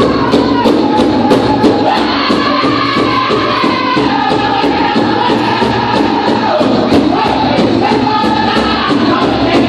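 Powwow drum group singing to a big drum struck in a steady beat of about three strokes a second. The voices step down in pitch through the middle of the song.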